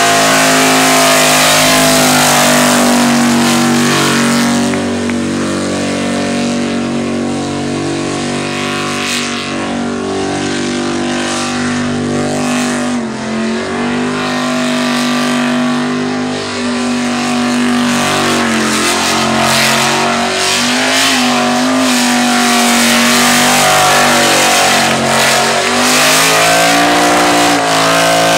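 V8 Holden VB/VC Commodore doing a burnout: the engine is held at high revs, steady in pitch with short dips now and then, over the hiss of the spinning rear tyres.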